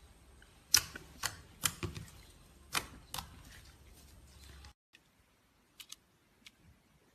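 Slime being pressed and worked, giving sharp clicking pops: five loud ones in the first three seconds or so, then, after the background hum cuts off, three fainter clicks.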